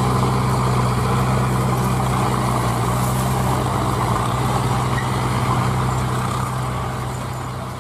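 Diesel engines of a tractor and a JCB backhoe loader running steadily as the loader pushes a loaded sugarcane trailer, a constant low engine hum that slowly fades near the end.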